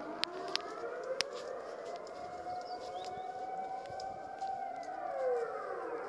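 Dutch civil-defence air raid sirens sounding the monthly test: several sirens at different distances wailing out of step, each tone slowly rising and falling so that the pitches cross and overlap. A few sharp clicks sound close by in the first second and a half.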